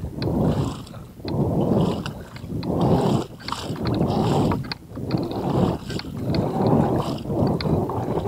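Wind buffeting the microphone in gusts about a second apart, with scattered light clicks.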